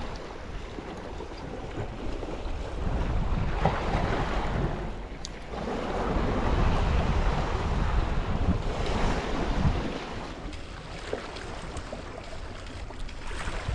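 Sea waves washing against shoreline rocks, swelling and easing, with wind buffeting the microphone.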